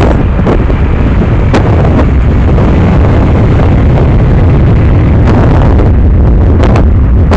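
Boeing 747 freighter's four jet engines at takeoff thrust during the takeoff roll: a loud, continuous low rumble that overloads the microphone, with occasional sharp crackles.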